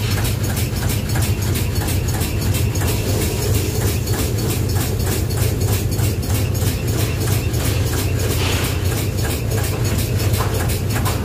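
Steady low drone of a lube truck's engine and oil-dispensing pump system running while oil is pumped to an outlet, with a fast, even pulsing over it.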